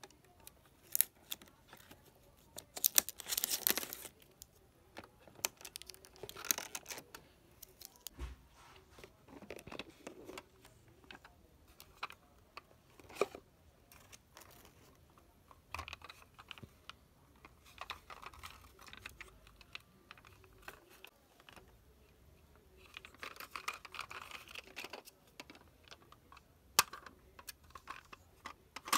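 A die-cast toy car and its stiff plastic display packaging handled by hand, giving irregular sharp clicks and knocks with a few stretches of plastic scraping and crinkling. The scraping is loudest early on, at about three and six seconds, and again a few seconds before the end.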